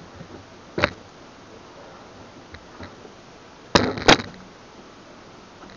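Sharp clicks of pliers and a small plastic action camera being handled on a tabletop: one about a second in, then two louder clicks close together near the end, over quiet room tone.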